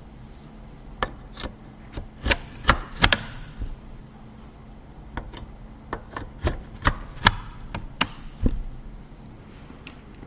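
Hard parts being handled during a PC build: a run of sharp clicks and taps in two bursts, the first about a second in and the second about five seconds in, with a pause between.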